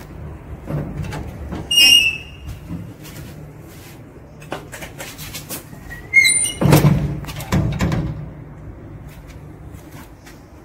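Old S.N.E.A.M. passenger lift's doors being worked: clicks and a high metal squeak about two seconds in, then another squeak and two heavy bangs as the doors shut about six to eight seconds in, over a low steady hum.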